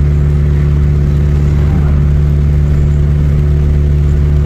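Steady low drone of a moving vehicle's engine and road noise, unchanging throughout.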